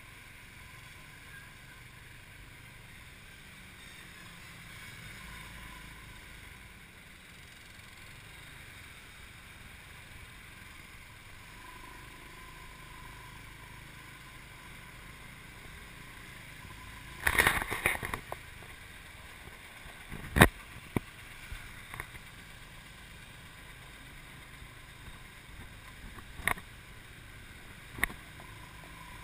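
Steady wind and traffic noise heard from a motorbike taxi moving through city streets. A loud rough burst lasts about a second just past the middle, followed by a few sharp knocks.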